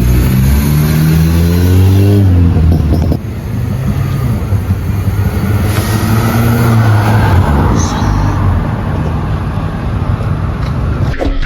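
Honda Civic running through a new full-system stainless steel exhaust, revving: the pitch climbs over the first two seconds, drops off about three seconds in, then climbs again a few seconds later.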